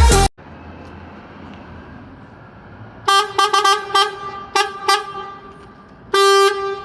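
Bus horn sounding a quick run of about seven short toots, then one longer blast near the end, over steady street traffic noise.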